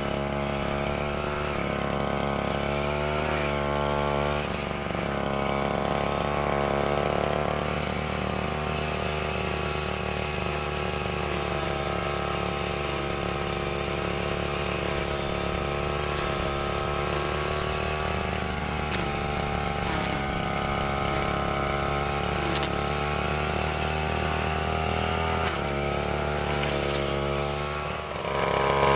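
STIHL FR 3001 brushcutter's two-stroke engine running steadily, its pitch wavering up and down as the throttle and load change.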